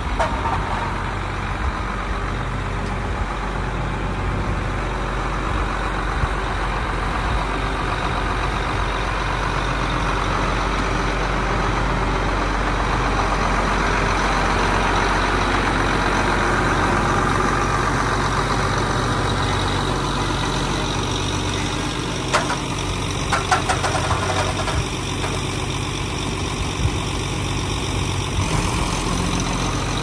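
Large John Deere four-wheel-drive tractor's diesel engine running steadily as it pulls a disc harrow past, growing louder as it comes nearest around the middle. A few sharp knocks come about two-thirds of the way through.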